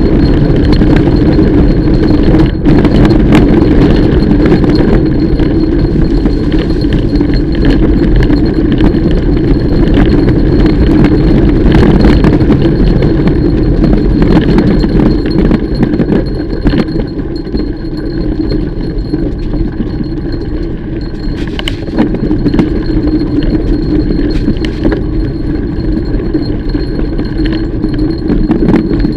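Mountain bike ridden over a dirt trail: a loud, steady rumble of tyres and bike, with frequent rattling clicks and clinks from the chain and frame. It gets slightly quieter about halfway through.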